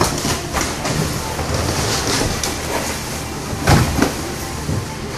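Cardboard boxes being handled and moved on a metal skate-wheel roller conveyor: a continuous rattle of the wheels, with scattered knocks of boxes on the rollers and a couple of louder knocks a little past halfway. A steady low hum runs underneath.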